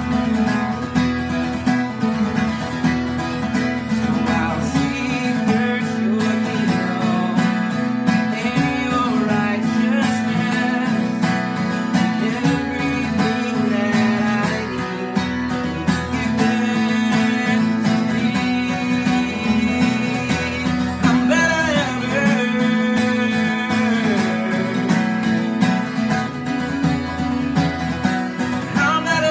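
Acoustic guitar playing a song's chord progression, with open strings droning steadily under the changing chords.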